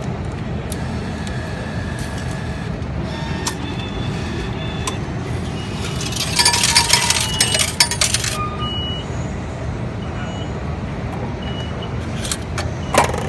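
MetroCard vending machine paying out change: a dense two-second clatter of metallic clinks about six seconds in as dollar coins drop into the change tray, with a few short high beeps. There are more clinks near the end as a hand scoops through the tray. A steady low rumble of station background noise runs underneath.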